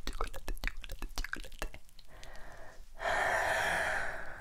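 ASMR mouth sounds close to the microphone: quick wet clicks and pops, then a steady, breathy exhale from about three seconds in.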